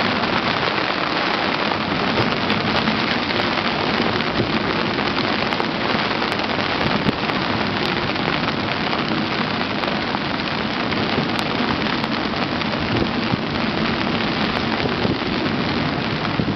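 Heavy thunderstorm rain pelting a sailing yacht's deck and cockpit: a steady, dense hiss of rain that does not let up.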